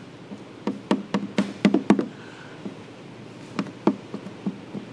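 Irregular light taps and clicks of fingertips and a PPF squeegee pressing wet protective film onto a plastic headlight lens. A quick run of them comes about a second in, and a few more follow near the end.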